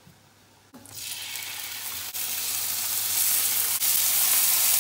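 Thin oiled slices of beef tenderloin sizzling as they are laid one by one into a hot cast-iron skillet to sear. The sizzle starts suddenly about a second in and grows louder as more slices go in.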